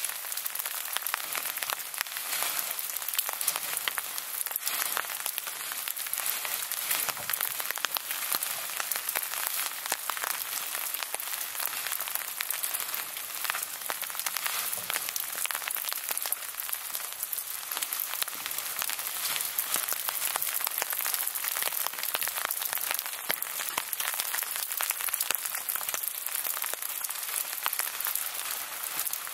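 Heavy rain falling steadily, a dense, even hiss of drops.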